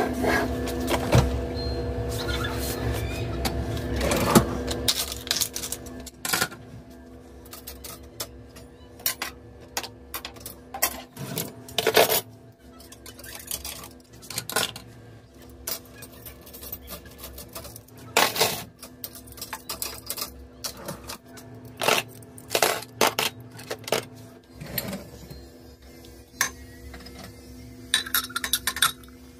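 Kitchen utensils and ceramic mugs being handled and put away: scattered clicks, knocks and clinks, the louder ones spaced several seconds apart, over a steady low hum.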